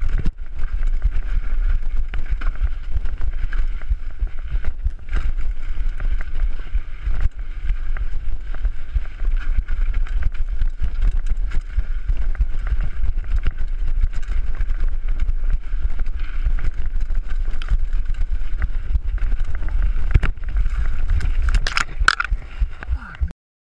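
Mountain bike rattling and clattering down a rough dirt downhill trail, with wind buffeting the camera microphone. Near the end there is a quick burst of crashing impacts as the rider clips a tree and falls, and then the sound cuts off suddenly.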